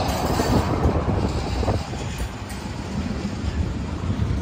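Freight train tank cars rolling past: a steady low rumble of steel wheels on the rails with irregular clunks and rattles.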